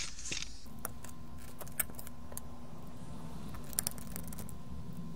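Small sharp clicks and taps of hands handling the plastic parts of an opened headset ear cup and its circuit board, a few scattered knocks over a steady low hum.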